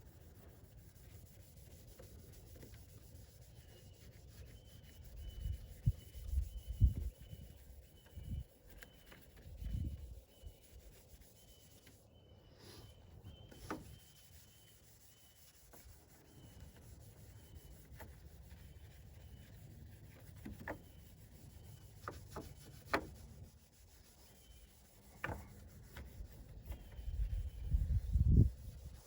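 Cloth being scrubbed over a plastic composite headlight lens with cleaner, irregular rubbing strokes with some bumps and ticks, louder for a few seconds about a fifth of the way in and again near the end. It is the cleaning step that removes the lens's yellow oxidation.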